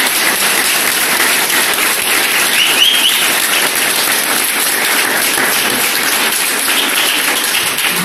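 A room of wedding guests applauding: dense, steady clapping, loud throughout.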